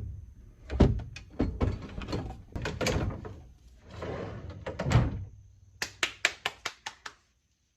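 A wooden dresser drawer on new drawer slides being worked in and out: knocks and thuds, a short rolling scrape about four seconds in, then a quick run of about eight sharp clicks near the end.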